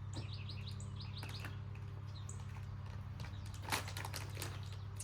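Small birds chirping, a quick run of short high notes in the first half that thins out later, over a steady low hum. About three and three-quarter seconds in, a single sharp crackle or snap stands out as the loudest moment.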